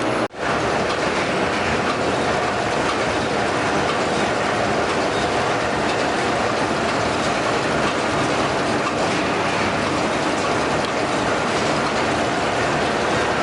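Wire mesh resistance welding machinery running in a factory: a loud, continuous mechanical clatter.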